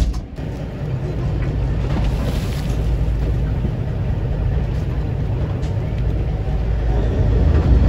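Tour boat underway on open water: its engine and the passing water make a steady low rumble, growing a little louder near the end.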